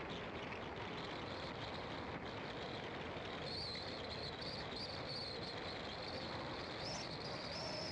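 Car driving on an asphalt road: steady road and tyre noise. A faint, high, wavering whine joins about halfway through.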